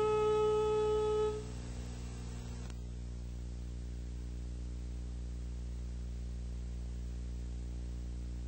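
The closing music of the film ends on a long held chord that stops about a second in. After it, only a steady low hum remains.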